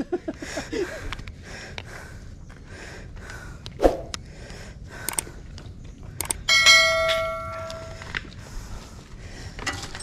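Subscribe-button notification bell sound effect: a couple of mouse-click ticks, then one bright bell ring that dies away over about a second and a half. A single knock comes a couple of seconds before it.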